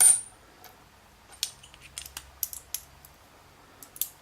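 Small metal lock parts clicking and clattering against a hard surface while a Bricard Trial S dimple lock cylinder is taken apart: a sharp metallic ping with brief ringing at the start, then a scattering of light clicks.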